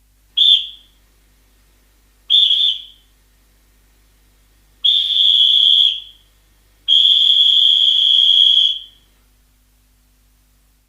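Referee's whistle blown four times at one steady high pitch: two short blasts, then a longer blast of about a second and a final long blast of about two seconds.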